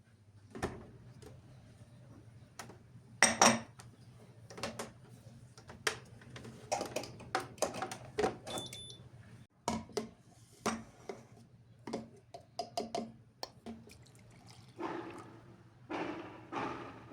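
Household handling sounds: dishes and cups clinking and being set down in a run of irregular knocks and clicks, with some water or liquid sounds. A short, high electronic beep comes about eight and a half seconds in.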